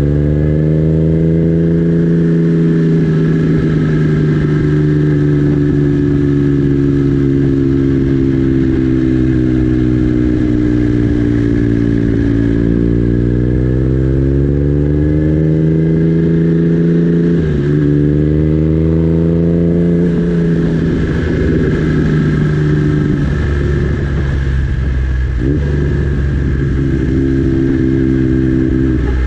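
Triumph Trident T150V three-cylinder engine running through its 3-into-1 exhaust, with the revs rising and falling as the throttle is worked. The revs climb slowly and then drop sharply about two-thirds of the way through.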